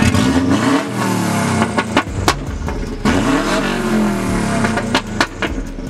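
Subaru WRX hatchback's turbocharged flat-four revved twice, each rev climbing and then falling back. A sharp exhaust pop follows each rev.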